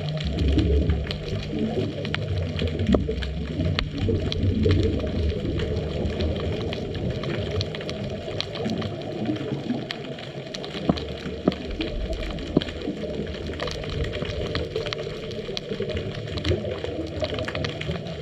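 Underwater sound picked up through a GoPro's dive housing: a low rumble and bubbly churning, with a few steady low hums and many scattered sharp clicks.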